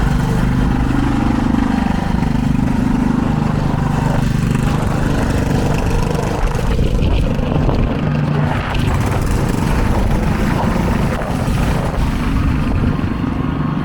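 Street traffic: a large vehicle's engine running close by, a steady low rumble whose pitch shifts in the first few seconds.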